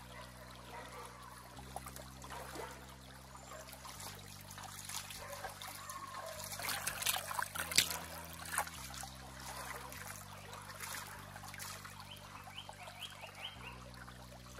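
Shallow stream water trickling and rushing over stones, with splashes as hands wash a pumpkin in it. The loudest splashes come about seven to eight seconds in.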